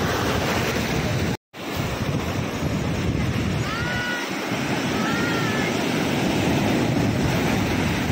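Sea surf washing and breaking through the shallows, with wind buffeting the microphone. The sound drops out completely for a moment about a second and a half in, and faint distant voices call out twice around the middle.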